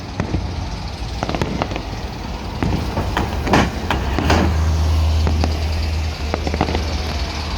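Fireworks going off in a quick series of bangs and crackles, the loudest bursts about three and a half and four seconds in, over a steady low rumble.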